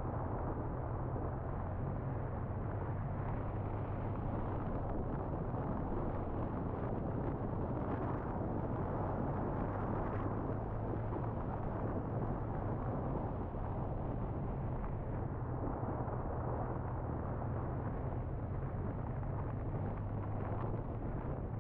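BMW R1200R's boxer-twin engine running steadily under way, with wind and road noise rushing over the microphone.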